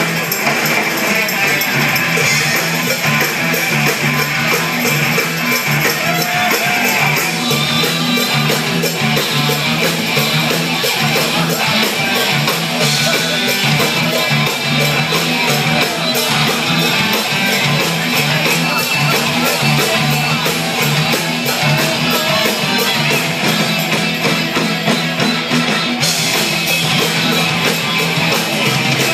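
Live Latin rock band playing loud and steady: electric guitars over congas, drum kit and bass guitar.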